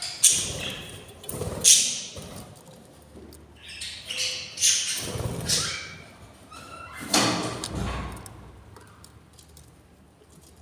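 Budgerigar chicks in the nest giving raspy begging squawks in about half a dozen bursts, mixed with thumps and scuffling.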